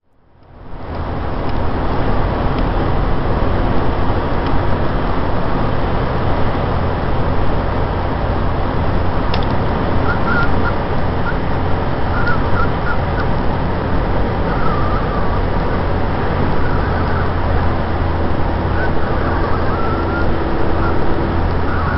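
Steady car road noise inside the cabin, with a chihuahua whining in short, high, wavering squeals from about halfway through, coming more often near the end. The whining is a sign of the dog's excitement.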